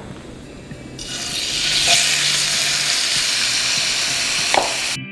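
Marinated chicken pieces sizzling in hot olive oil in a nonstick frying pan on high heat. The sizzle starts about a second in as the chicken goes into the pan, and cuts off suddenly near the end.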